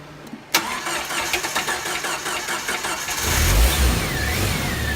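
A 1999 Jeep Wrangler TJ engine is started cold. A click comes first, then the starter cranks for about two and a half seconds, and about three seconds in the engine catches and settles into an idle. A whine dips and then levels off. It rattles on start-up, but while cold the knock that the owner blames on timing chain slap is still relatively quiet.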